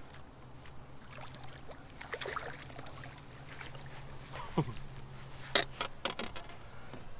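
A hooked spotted bass splashing at the surface as it is scooped into a landing net beside the boat, with splashes about two seconds in and a cluster of sharp knocks and splashes, the loudest sounds, about five and a half to six seconds in, over a steady low hum.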